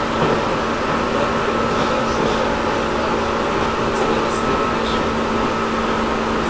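Tobu 10000 series electric train running between stations, heard from inside the car above the main controller: a steady rumble of motors and wheels on rail, with the air conditioning running and a steady hum.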